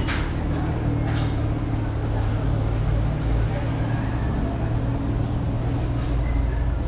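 Steady low engine hum of a car moving slowly along the street, over a murmur of street noise, with a couple of sharp knocks in the first second or so.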